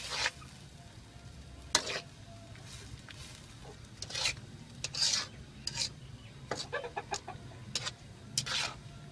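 Metal slotted spatula scraping and clinking against an iron karahi as boiled noodles are stirred and tossed, in irregular strokes over a low steady hum.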